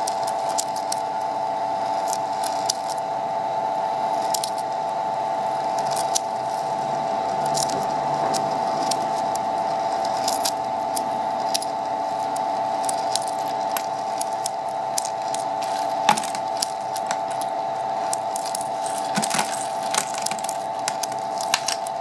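Maja flake ice machine running with a steady whine, over irregular crackling and clicking as ice is scraped off the freezing drum and the flakes break and fall.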